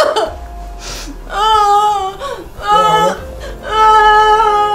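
A woman wailing and sobbing, in long, high-pitched drawn-out cries broken by short gaps.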